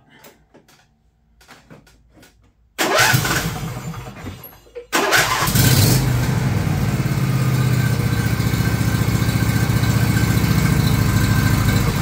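John Deere LA135 lawn tractor's V-twin engine cranked by its electric starter for about two seconds, catching about five seconds in and then running steadily.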